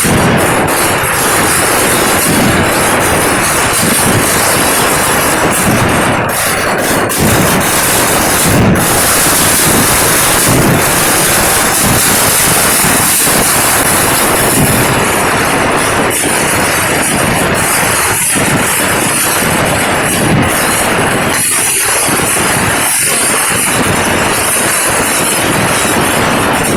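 Kerala-style vedikettu fireworks barrage: firecrackers going off so rapidly that the explosions merge into one continuous loud crackling rumble, with sharper bangs standing out now and then.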